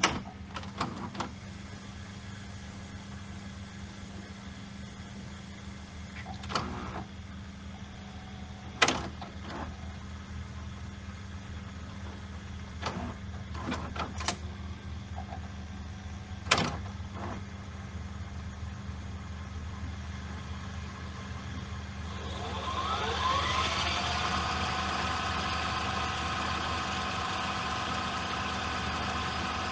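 VHS video cassette recorder: the transport motor hums steadily while the mechanism clicks several times. About 22 seconds in, the tape spools spin up in a rising whine that settles into a steady whir as the tape winds at high speed.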